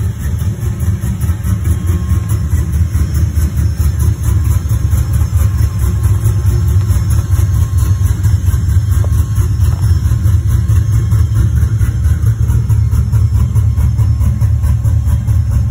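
Chevrolet 5.3-litre LS V8 with long-tube headers and a custom-ground cam, idling with a deep, steady exhaust note.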